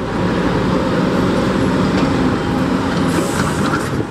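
City street traffic with a large vehicle's engine running loud and close, and a brief hiss about three seconds in.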